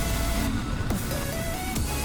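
Electronic dance music with held synth notes over a steady deep bass.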